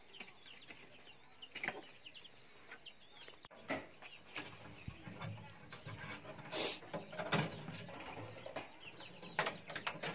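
Chicks peeping in quick, falling chirps for the first few seconds. Then, after about three and a half seconds, steel wire is twisted tight by hand around a wooden batten, giving scattered clicks and scrapes.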